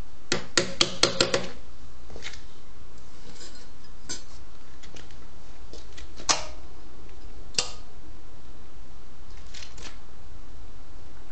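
A quick run of about six sharp metal taps, then a few single clicks spread out, over a steady low hum: a clip-on balance weight being knocked onto the rim of a steel wheel mounted on a wheel balancer.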